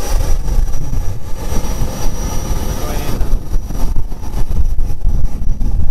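Private jet's engines running loud: a heavy, uneven rumble with a thin, steady high whine above it.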